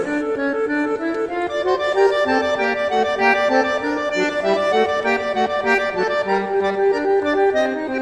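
Background music: an accordion-type instrument playing a quick melody of many short notes.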